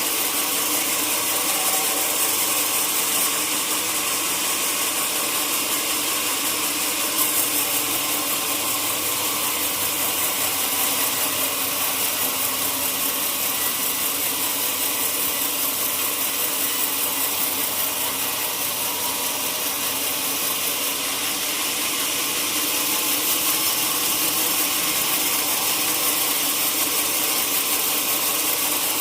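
Sawmill saw machinery running steadily while processing teak wood: a loud, continuous mechanical noise with a high hiss and a few steady tones, unchanging throughout.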